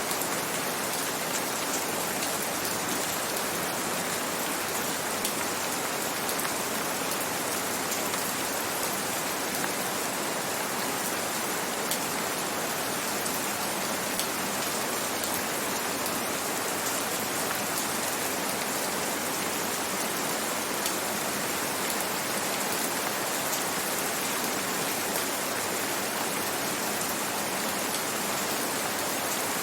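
Steady rain falling, a constant hiss with fine scattered drops.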